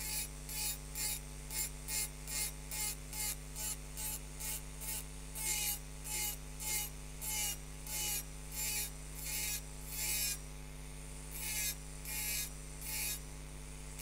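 A diamond burr in a rotary engraving handpiece grinds into a wine glass in short, quick strokes, each one pressed in and flicked off. It makes a gritty, high hiss about two or three times a second, pauses briefly near the end, then starts again. A steady low hum runs underneath.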